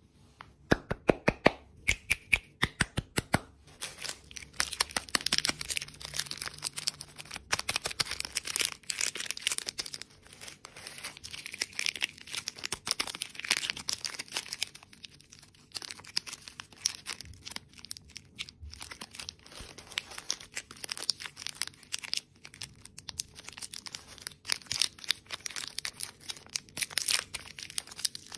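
Plastic candy-bar wrappers being handled close up: crinkling, rustling and tearing as they are peeled open. A quick run of sharp clicks comes in the first few seconds, before the crinkling sets in.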